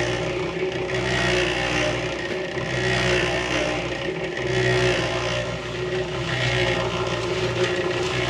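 A motor running steadily at an even pitch, with a rushing, scraping noise that swells and fades every second or two.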